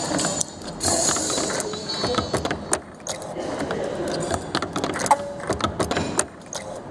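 CNC spring forming machine running: its tool slides and wire feed clicking and clattering in quick, uneven knocks as wire is fed and bent around the forming quill, with a brief hiss about a second in.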